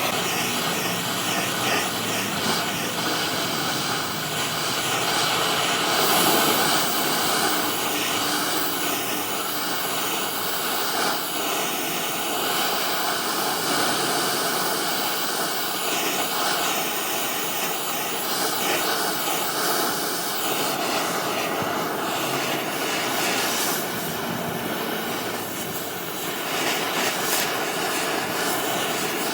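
Metalworking machinery running steadily: a loud, dense noise with a wavering high whine, the sound of steel being cut or ground.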